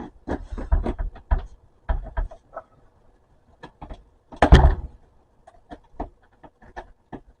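Handling noise from a manual typewriter's zippered carry case being wrestled open: short knocks, clicks and rattles as the zipper, which is falling apart, is tugged, with one loud thump about four and a half seconds in.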